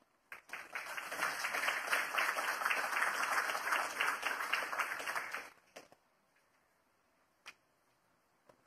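Audience applauding for about five seconds, then dying away, followed by a few faint isolated clicks.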